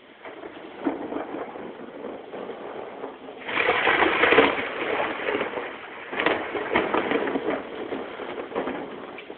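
Thunder rolling and crackling. It builds from the start, peaks in a long loud crackle about three and a half seconds in, and a second loud crack comes around six seconds before it dies down.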